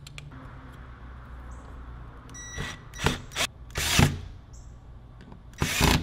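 Cordless drill-driver driving a long flat-head screw through a door lock's mounting plate, run in several short bursts over the second half.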